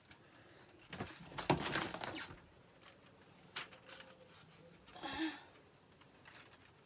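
Handling noises: a few clicks and knocks with a brief rustle. The loudest knock comes about a second and a half in, and fainter ones follow a couple of times later.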